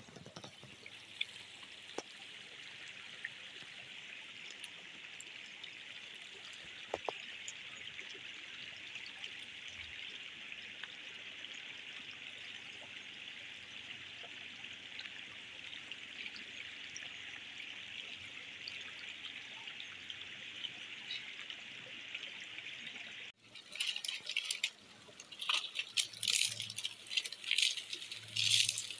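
Shallow stream trickling over rocks, a steady hiss of running water. After a cut near the end, a run of irregular clicks and knocks.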